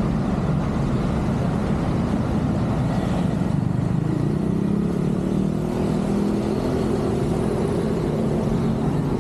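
Roadside traffic: a constant low rumble, with a vehicle engine humming steadily from about four seconds in.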